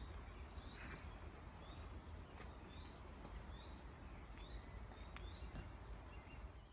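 Faint short rising chirps of a small bird, repeating about once a second over a low steady rumble, with a few faint ticks.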